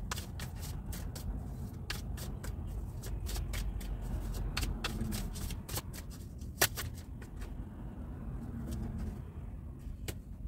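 A deck of tarot cards shuffled by hand: a run of irregular soft card slaps and flicks, with one sharper snap a little past the middle, over a low steady rumble.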